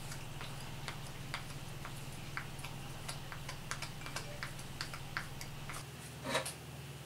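Irregular light ticks and scratches, about three or four a second, from a small wooden axe-handle wedge being hand-sanded with sandpaper, over a steady low hum. Near the end comes one louder, short scrape or knock as the wedge is set into the kerf in the top of the handle.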